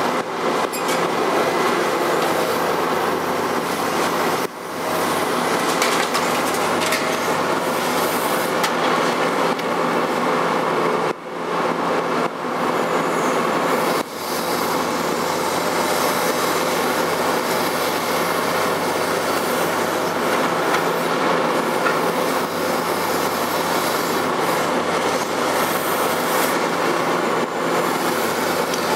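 Liebherr R 954 B demolition excavator's diesel engine running under load, with a continuous din of crunching, grinding and metal scraping as its demolition attachment tears into a building's roof structure.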